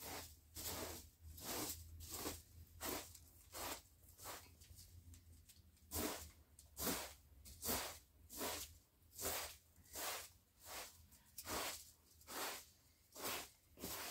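Straw broom sweeping a rug: regular swishing strokes, a little more than one a second.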